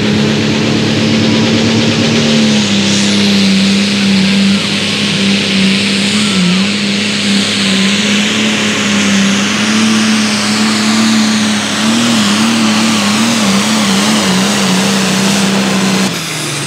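Farmall super stock pulling tractor's diesel engine running flat out under the load of the sled, its steady pitch dropping slightly as the load comes on. The pitch wavers near the end, then the engine backs off sharply as the run finishes.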